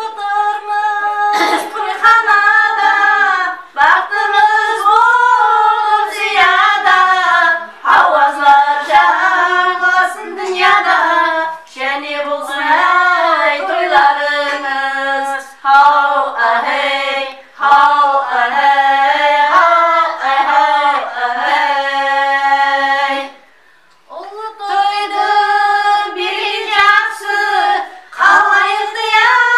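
Women's voices singing a Karakalpak song without accompaniment, with high bending melodic lines and some notes held for a few seconds. The singing breaks off briefly about three quarters of the way through.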